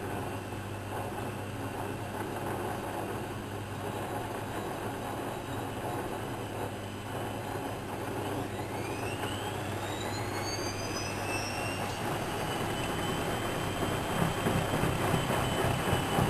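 Whirlpool Expert 1000 washing machine running with a steady hum. About halfway through, the motor's whine rises in pitch and then holds high as the drum speeds up, and the machine grows louder toward the end.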